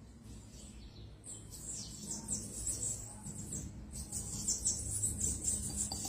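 A small bird chirping in rapid, high-pitched peeps, starting about a second in and carrying on densely to the end, over a faint low steady hum.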